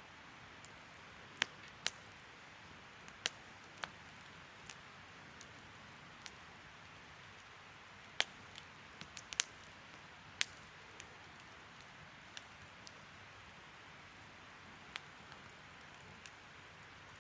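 Wood fire crackling: a steady soft hiss broken by irregular sharp pops and snaps, with a quick run of them about halfway through.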